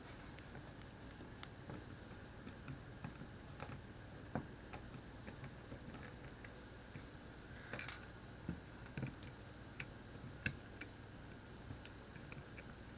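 Faint, irregular small clicks and taps of hand tools and small parts during the teardown of a BlackBerry Curve 8520 mobile phone.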